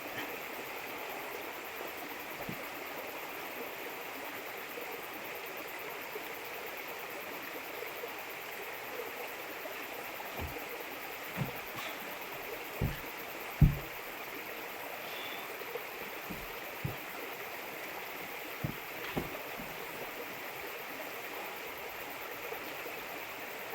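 Steady rush of running water with a few scattered dull thumps, the loudest about halfway through.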